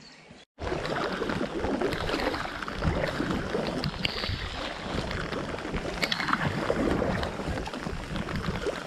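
Kayak paddles dipping and splashing on a river in the rain, with rain spattering on the water and the boat and some wind on the microphone: a dense, even hiss full of small ticks, starting about half a second in.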